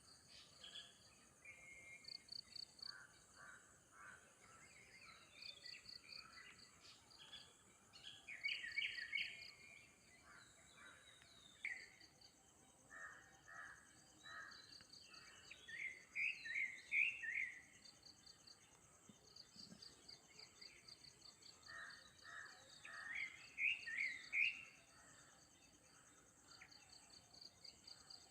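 Birds calling in repeated phrases: quick series of high chirps, and groups of three or four louder, lower calls, some rising in pitch. Under them runs a steady high insect buzz.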